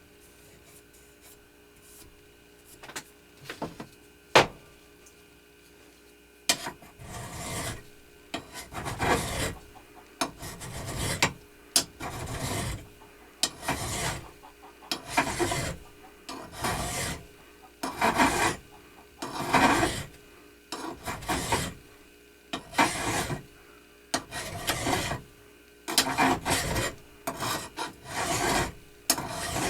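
Hand file rasping in a steady series of strokes, about one a second, after a few light clicks and a single sharp knock about four seconds in.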